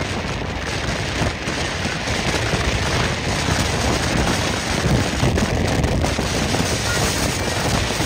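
Strong wind near a tornado blowing hard across the microphone: a loud, dense rumble with a rough crackle, keeping up without a break.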